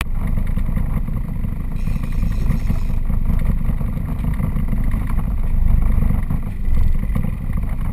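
A fishing boat's engine running, a steady low rumble.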